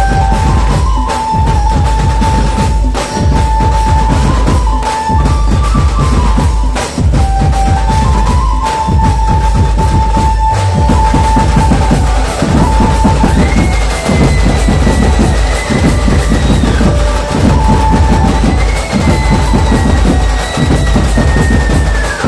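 Instrumental passage of a Gaura-Gauri jas devotional folk song: dense drumming with deep bass beats under a melody held in long, steady notes. About halfway through, a higher lead line comes in with sliding notes.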